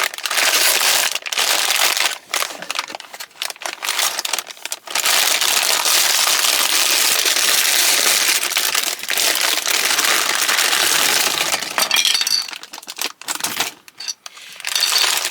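Plastic bags of building bricks rustling and crinkling as they are handled, with small bricks clinking inside; the crinkling runs steadily through the middle and is broken up at the start and near the end.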